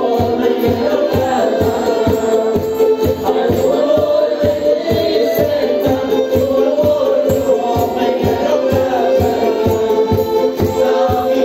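Live Madeiran folk music: a drum beaten by hand keeps a steady beat of about three strokes a second under a sustained melody and singing.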